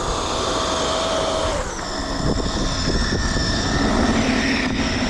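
Electric RC monster truck driving, its motor whining: the whine drops about a second and a half in, then holds at a new pitch over a low rumble.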